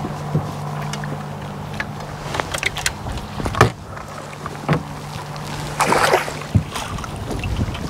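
Fishing boat sounds: a steady low motor hum that stops about six and a half seconds in, with scattered knocks on the boat and a short rushing noise about six seconds in.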